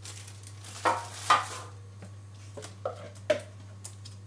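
Kitchen handling noises: a plastic-lined baking pan set down on a tiled counter and a silicone spatula picked up, giving a few short clatters and knocks, the loudest about a second in. A low steady hum runs underneath.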